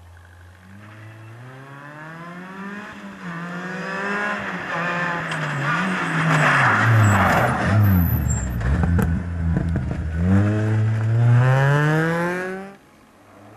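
Ford Fiesta rally car's engine accelerating hard through the gears, its pitch climbing and dropping back at each upshift and growing louder as it approaches. It lifts off for a bend about eight seconds in, with tyre noise, then pulls away hard again before the sound cuts off suddenly near the end.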